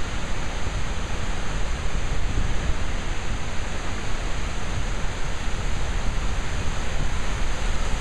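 Skógafoss, a large waterfall, heard close up: a loud, steady rush of falling water with a deep low end.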